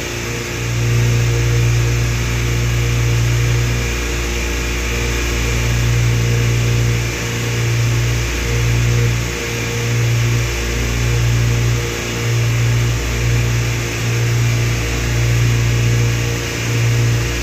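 Yamaha 242 jet boat's engine running steadily while under way, a loud low drone that wavers and dips briefly every second or two, with a rushing noise over it.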